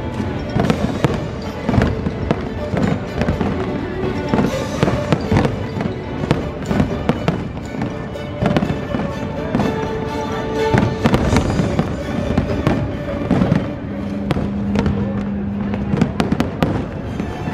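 Aerial fireworks going off in rapid succession, a dense run of bangs and crackles, with music playing along over them.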